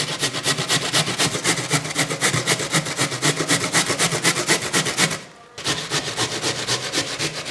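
White radish (mooli) grated by hand on a stainless-steel box grater: quick rasping strokes about four or five a second, with a half-second pause about five seconds in.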